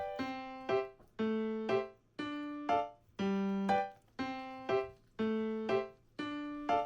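Background music: a light piano melody repeating a short pattern of notes, about one phrase a second.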